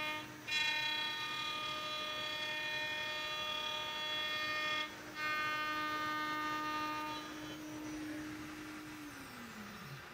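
ShopSabre CNC router spindle whining steadily as its end mill cuts acetal on the finishing contour pass, with two brief dips. About seven seconds in the higher cutting tones fade, and near the end the spindle spins down, its pitch falling.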